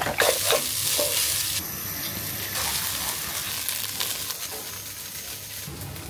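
Egg and fried rice sizzling in a frying pan while a spatula stirs them, with a few utensil clicks near the start. The hiss changes abruptly a couple of times.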